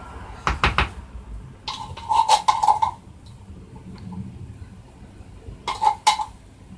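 A metal utensil knocking and scraping against an open tin can as sweet corn is emptied from it into a bowl. The clinks come in clusters with a short ring: a few about half a second in, a longer run around two to three seconds in, and two more near the end.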